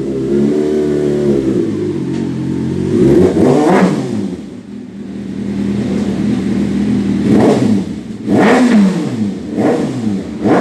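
Vehicle engine idling and revved in repeated sharp throttle blips, each rising and falling quickly, about five times.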